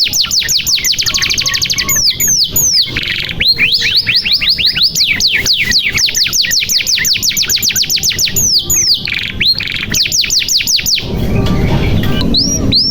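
Domestic canary singing fast rolling trills, each a run of quick downward-sweeping whistled notes at about a dozen a second, in several tours with short breaks. About a second and a half before the end, a low rushing noise sits under the song.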